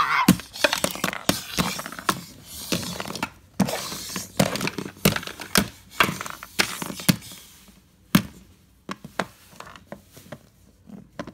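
Irregular knocks, taps and rustling of objects handled close to the microphone. They come thick and loud for about eight seconds, then thin out to a few faint clicks.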